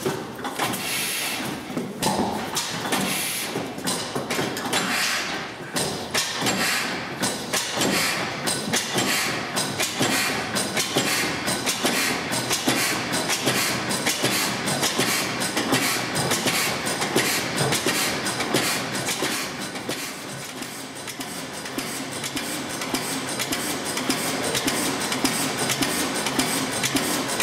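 Old stationary engine with large heavy flywheels running, a steady rapid clatter of knocks and clicks from its moving parts.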